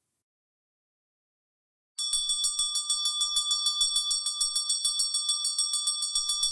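A glass cup struck rapidly and repeatedly, about nine taps a second, ringing with a steady bright tone. It starts suddenly about two seconds in.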